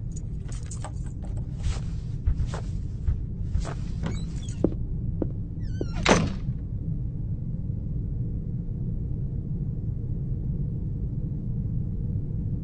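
Shoes scraping and scuffing in short strokes as feet are wiped, then about six seconds in a door creaks and shuts with a thud. After that only a steady low rumble of room tone remains.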